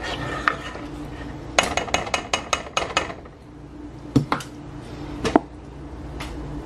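A spoon clinking against a nonstick saucepan while stirring a cream sauce: a quick run of about eight clicks starting a second and a half in, then a few separate knocks.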